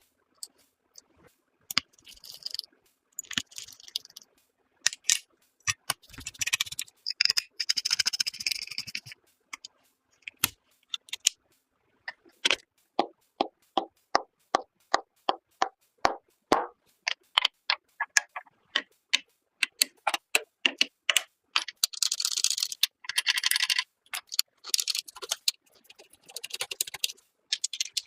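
A run of sharp clicks and taps, about two a second through the middle stretch, broken by several short stretches of rustling or scraping. These are the sounds of PC parts being handled, clicked and fitted together during assembly.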